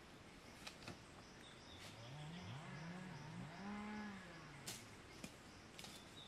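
Faint, low animal calls that rise and fall in pitch, several in a row around the middle, the longest about four seconds in. There are also a few faint knocks and some high chirps.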